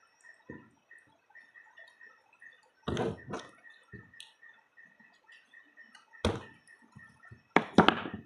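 Someone eating durian close to the microphone: irregular wet mouth and chewing sounds, a few of them loud, the loudest cluster near the end. A faint, even, high-pitched pulsing tone runs underneath.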